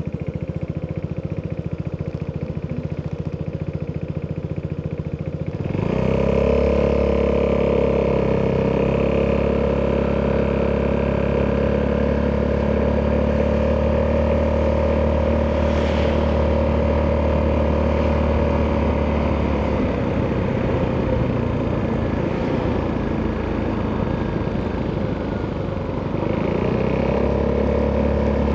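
Italjet Dragster 200 scooter's single-cylinder four-stroke DOHC engine, through an Akrapovic exhaust, idling with an even low beat. About six seconds in it accelerates away and settles into a steady, louder running note. The note eases off around twenty seconds as the throttle closes, and rises again near the end.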